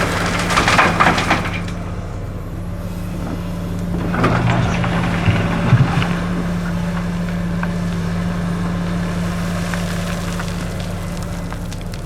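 Excavator loading dredged gravel: a heavy diesel engine hums steadily while gravel crunches and rattles at the start and again about four to six seconds in.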